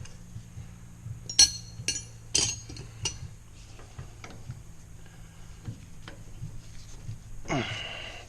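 Metal wrench clinking against hydraulic hose fittings: four sharp clinks between about one and three seconds in, then near the end a short sound that falls in pitch.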